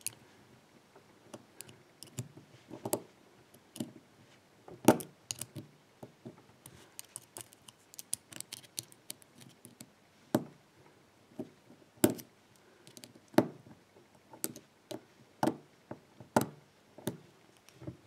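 Small screwdriver prying at the retaining clip on the back of a lock cylinder's brass plug: metal scraping and irregular sharp clicks, about half a dozen of them louder snaps.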